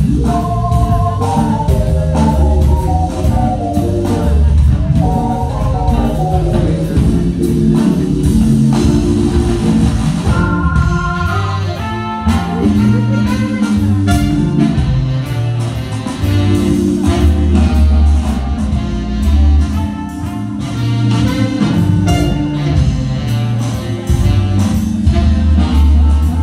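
Live jazz band playing: keyboard over a deep bass line, with a trumpet taking the melody from about ten seconds in.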